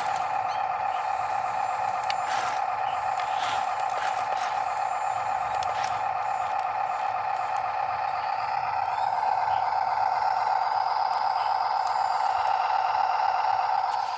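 Small electric motor of a radio-controlled construction machine whining steadily, with light scraping and rattling. The whine grows louder about eight and a half seconds in and falls away at the very end.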